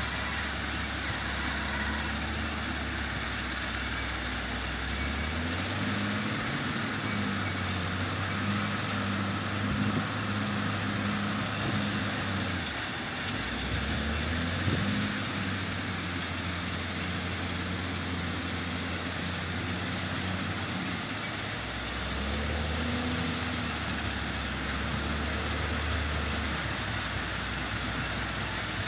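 Wheel loader's diesel engine working through its loading cycle, revving up about five seconds in, dropping back around thirteen seconds, revving up again, then falling away and rising once more near the end, over a steady hiss.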